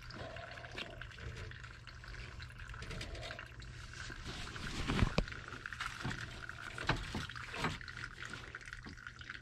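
Copper refrigerant line being cut with a hand tubing cutter: light scraping with a few sharp clicks, the loudest about five seconds in.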